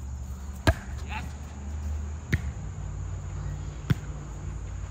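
A volleyball being hit three times, about a second and a half apart, each a sharp smack, over a low rumble.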